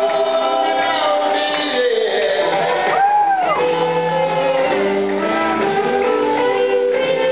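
Live rock band playing, with sustained lead notes over the band; about three seconds in, one lead note slides up and back down.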